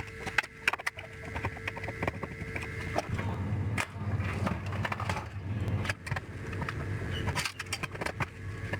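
Clicks and light knocks of hand work on a CRT TV's plastic and metal parts, with a low steady hum for about four seconds in the middle.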